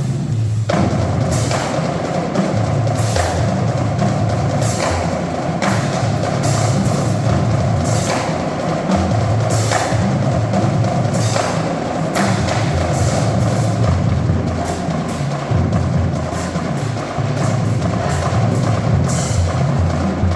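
Marching drumline playing a cadence: a continuous drum pattern with deep bass drums and sharp accented hits every second or two.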